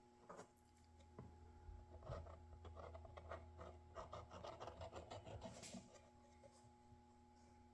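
Faint scratching and rubbing from hand work, with a quick run of light scratchy strokes from about two to six seconds in, over a faint steady hum.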